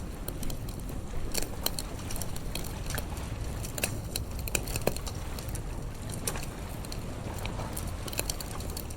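Wood fire crackling, with irregular sharp pops and snaps, over a steady low rumble.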